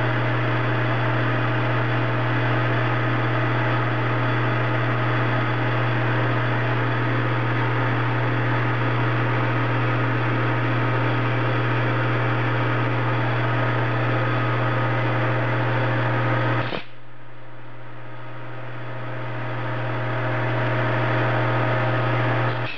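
Metal lathe running at about 800 RPM with a boring bar cutting a bore in 416 stainless steel: a steady hum with a hissing cutting noise over it. About 17 seconds in the hiss stops abruptly, and only the lathe's quieter hum carries on.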